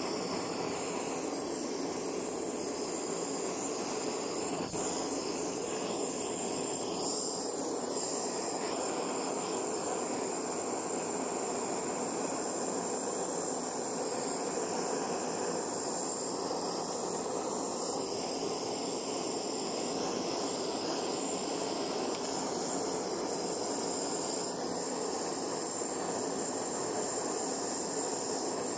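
Butane gas torch burning with a steady hiss.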